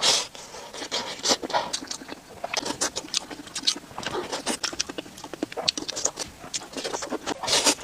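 Close-miked eating sounds: wet chewing and mouth smacking in irregular quick clicks, with a few louder, longer spurts, one near the start, one about a second in and one near the end.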